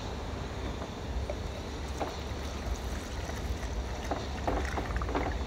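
LB7 Duramax diesel being cranked on the starter without starting, a steady low rumble with a few light clicks, while the injector return line fills a measuring container with fuel.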